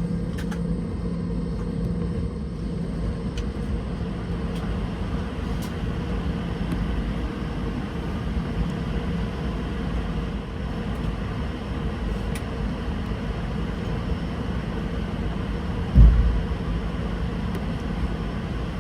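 Cabin noise of a taxiing Boeing 717: the rear-mounted Rolls-Royce BR715 engines' steady hum over a low rumble from the airframe and wheels. A single low thump about sixteen seconds in.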